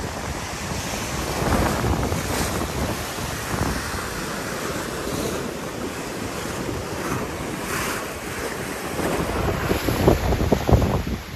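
Sea surf breaking and washing over shoreline rocks, with wind buffeting the microphone, the gusts heaviest near the end.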